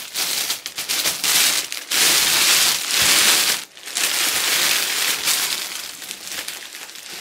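Clear cellophane wrap crinkling and rustling as it is gathered up around a basket and bunched at the top. It is loudest in the first half, dips briefly at about three and a half seconds, and is quieter towards the end as the neck is held and tied.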